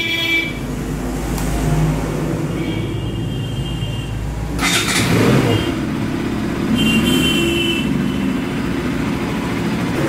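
Bajaj Pulsar RS 200 motorcycle engine being started after standing unused for many days, with a short louder burst about halfway through, then running steadily.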